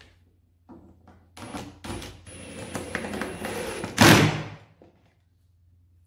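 Cordless drill-driver driving a screw into a wooden template: the motor runs with a steady high whine for about two and a half seconds, then a loud knock about four seconds in.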